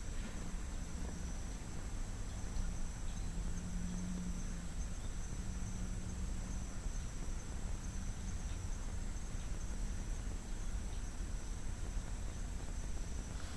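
Steady high-pitched insect chirring, like crickets, over a low background hum.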